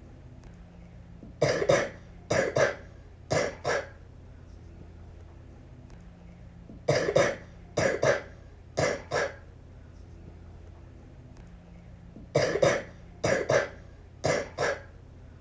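A little girl coughing in three fits of three or four coughs each, about five seconds apart. It is a terrible cough, which the uploader puts down to the flu.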